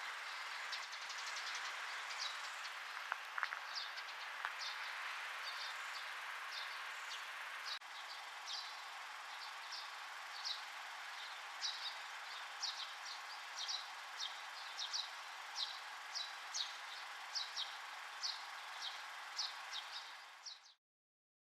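Outdoor ambience: a steady hiss with a small bird's short, high calls repeating about once a second. The sound cuts off abruptly near the end.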